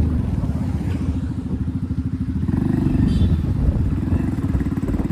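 Modified Hero Splendor's single-cylinder engine running through an aftermarket RX silencer: a loud, rapid exhaust beat that picks up slightly about halfway through.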